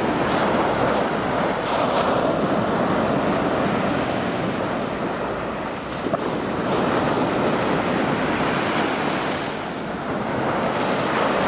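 Sea waves breaking and surf washing in a continuous rush that swells and eases slightly as each wave arrives.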